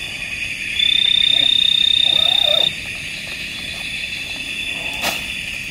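Night chorus of frogs and insects: a steady high chirring, with a loud single high call held for about two seconds near the start. A sharp click comes near the end.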